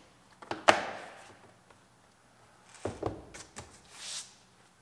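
Plastic door-trim switch panel being pressed and snapped into a car's door panel: a sharp snap-thump a little under a second in, then a few quicker clicks about three seconds in, with a short rubbing swish near the end.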